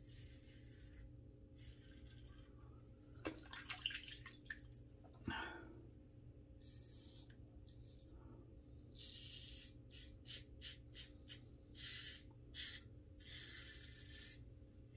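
Double-edge safety razor scraping through lathered stubble in a series of short, faint raspy strokes, coming quicker in the second half. A few light clicks about three to five seconds in.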